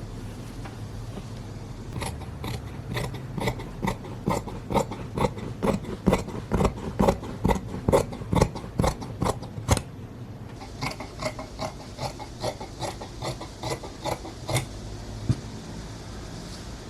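Scissors snipping in a steady rhythm, about two cuts a second, with a firmer run of snips that gives way about ten seconds in to a lighter, quieter run.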